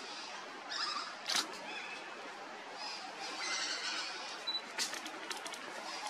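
Great slaty woodpeckers calling in bursts of cackling chatter. A sharp click comes about a second and a half in, and a quick run of clicks near the end.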